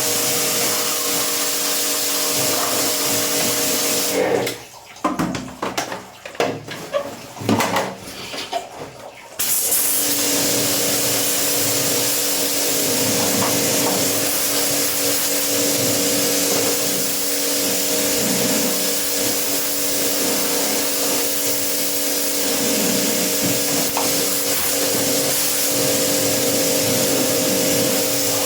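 Small pressure washer running with its pump humming and water spraying hard, as used to wash an air conditioner's coil. It sputters on and off in short spurts for a few seconds, then runs steadily again.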